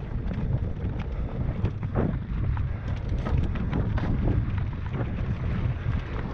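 Wind buffeting the microphone over tyres running on a loose, rocky dirt trail, with scattered clicks and rattles as the bike goes over stones.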